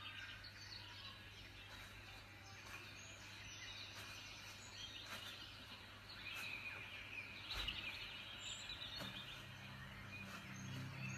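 Faint woodland ambience with birds chirping, coming from a TV soundtrack over a low steady hum. A low, sustained music note comes in near the end.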